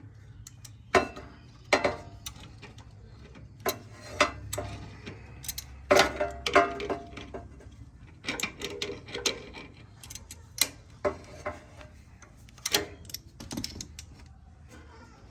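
A metal hand tool clicking and clinking in irregular sharp knocks while tightening the round oil drain cap on a Kohler K181 engine.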